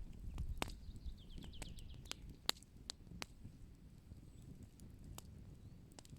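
Wood fire crackling with sharp, irregular pops, the loudest about two and a half seconds in, over a low rumble. About a second in, a bird gives a quick series of high notes that step downward.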